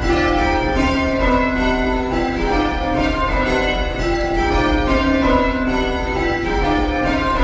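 Church tower bells being change rung, one bell after another in quick, even succession with their ringing tones overlapping, heard from the ringing chamber where the ropes are pulled.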